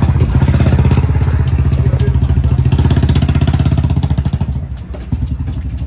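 A motor engine running close by with a fast, even beat, the loudest sound here; it fades down about four and a half seconds in.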